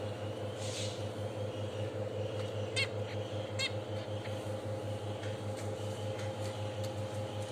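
Small cage birds chirping briefly a few times over a steady low machine hum.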